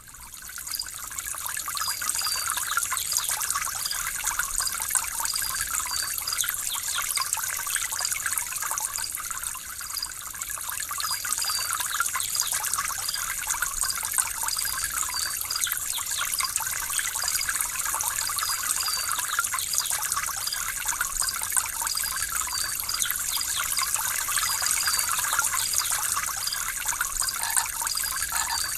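Running water trickling and splashing steadily, fading in over the first second or so.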